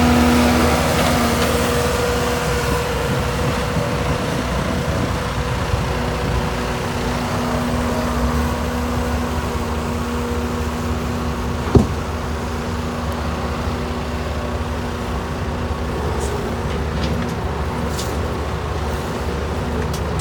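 Bobcat S630 skid steer's diesel engine running steadily, easing down from higher revs at the start. A single sharp knock about twelve seconds in.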